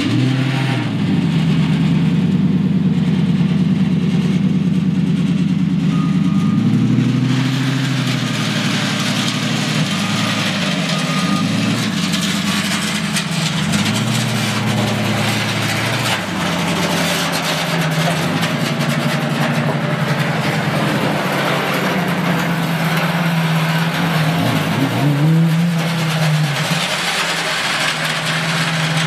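Lamborghini Gallardo's V10 engine running through a pair of huge cone-shaped exhaust extensions at low speed. Its pitch rises and falls with light throttle, with short revs about seven seconds in and again near the end.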